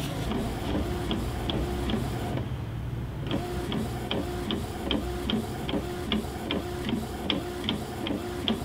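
Desktop inkjet printer printing a page: the print head shuttles back and forth with a quick tick about three times a second. It pauses briefly about two and a half seconds in.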